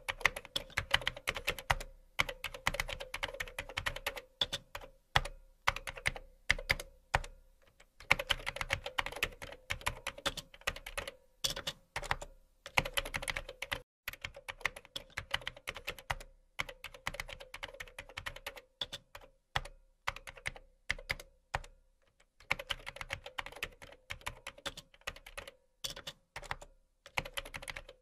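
Computer keyboard typing sound effect, rapid keystrokes in runs of a few seconds broken by short pauses, matching text being typed out on screen letter by letter.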